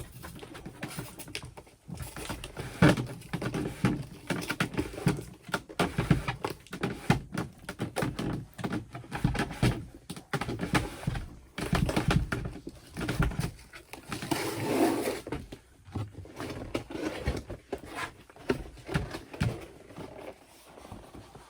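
Irregular knocks, taps and clatter of hand work in a small room, parts being handled and fitted while a toilet is installed.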